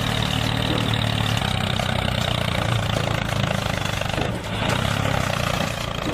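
A mini tractor's small motor running steadily, with a brief dip about four seconds in.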